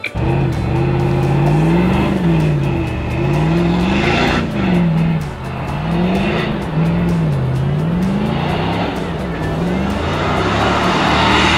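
SUV engine revving up and down over and over as it spins donuts on loose beach sand, with the hiss of its tyres churning the sand.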